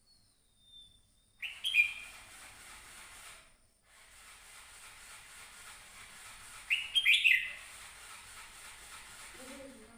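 Red-whiskered bulbul giving two short bursts of chirpy song, about a second and a half in and again about seven seconds in.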